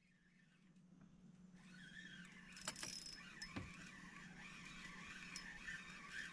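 Faint riverbank ambience fading in: a steady low hum, and from about a second and a half in, a continuous chorus of animal calls from the vegetation. Two sharp clicks come near the middle.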